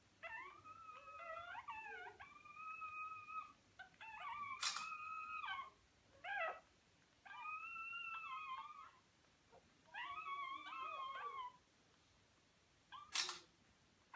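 Newborn Irish terrier puppies whining: about six long, high-pitched cries that bend up and down in pitch, with short pauses between them. Two sharp clicks, one about four and a half seconds in and one near the end.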